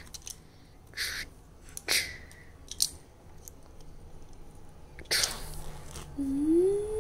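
Plastic Lego pieces being handled: a few short soft scrapes and rustles, with a longer one about five seconds in. Near the end a child's voice gives a short rising hum, imitating an engine starting up.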